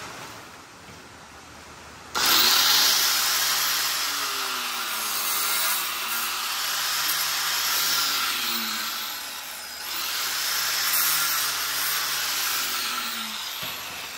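Corded electric angle grinder with a cutoff wheel cutting off the metal-cored stud of a rubber coil-spring isolator. It starts abruptly about two seconds in and runs loud, its motor pitch sagging and recovering as the wheel bites. It eases briefly about ten seconds in and stops near the end.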